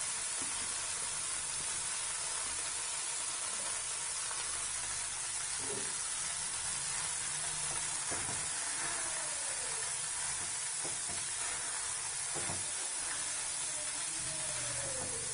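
Tamarind poha (puli aval) sizzling steadily in hot tempering oil in a kadai while it is stir-fried with a wooden spatula. The spatula scrapes and knocks against the pan a few times.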